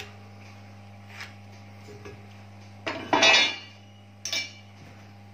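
Metal speed square clattering as it is set down on a hard surface, about three seconds in, with a short ringing clink, then a second, smaller clink about a second later.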